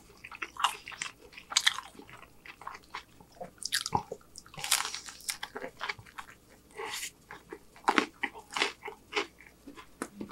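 Close-up mouth sounds of a man eating a piece of burger: a crunchy bite with chewing and crackles at an uneven pace.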